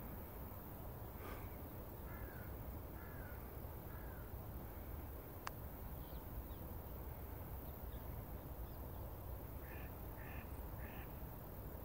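Wild birds calling in the open. A few short arched whistles come about a second apart early on, then a single sharp click about halfway, and three short harsh calls near the end.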